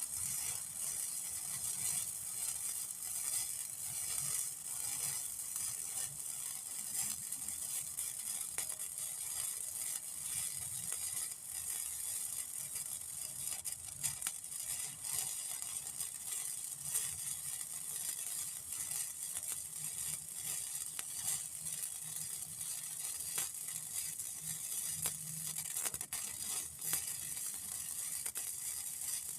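Gasless flux-core wire welder running a bead: the arc crackles and sizzles steadily and without a break.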